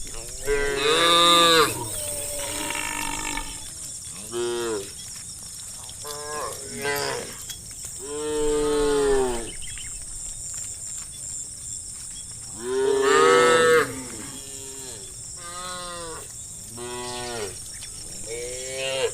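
Cows mooing over and over, a series of separate calls of varying length, the loudest about a second in and again around thirteen seconds.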